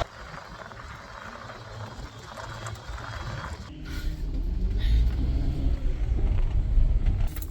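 Low, steady rumble of a vehicle on the move, growing louder about four seconds in.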